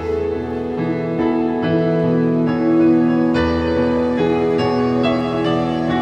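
Mixed choir of men and women singing sustained chords that shift every second or so.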